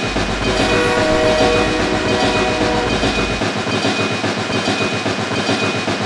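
Train running along its track with a fast, rhythmic clatter, and a steady tone sounding over it for the first few seconds.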